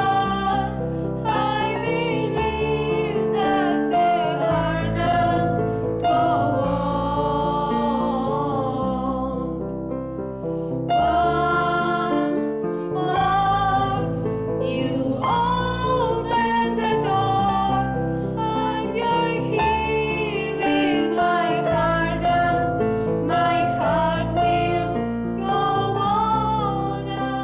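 Female voices singing a slow melody in long held notes with vibrato, accompanied by chords on a Kawai digital piano played four hands.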